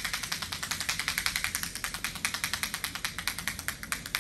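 A handheld sound-tapping tool held against a horse's body, giving a steady rapid train of sharp clicks, about ten a second, used as a sound trigger for the horse.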